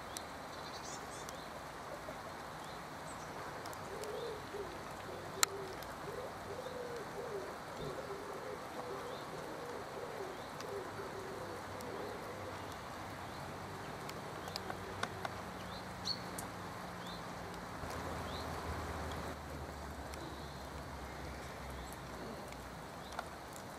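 Outdoor birdsong: a low, wavering cooing call repeated for several seconds in the first half, with faint high chirps of small birds scattered throughout. A low steady hum comes in during the second half.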